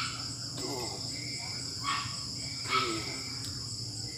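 Steady chorus of crickets chirring, with a man's short, strained breaths or grunts of effort coming four times as he lifts a homemade barbell.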